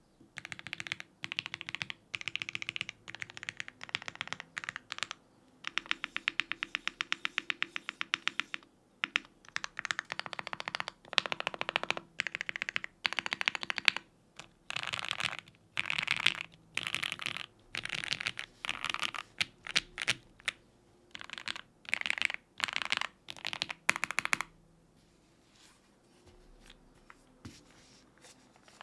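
Custom mechanical keyboard (ai03 Andromeda) with lubed Gateron Oil King linear switches on a polycarbonate plate and GMK Olive keycaps, typed on in bursts of keystrokes. A fast, even run of rapid presses comes from about 6 to 8.5 s. The typing stops near the end.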